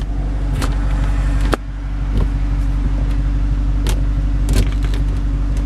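Dodge Challenger R/T's 5.7-litre Hemi V8 idling steadily, heard from inside the cabin. Over it, the six-speed manual shifter is moved through its gates with several short clicks and clunks.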